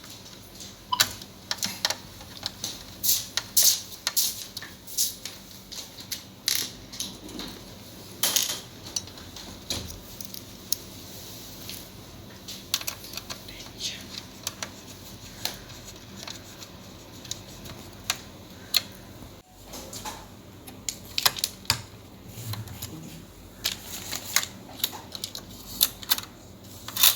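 Irregular sharp clicks and clinks of small hard parts and tools being handled while a computer is taken apart, over a faint steady hum.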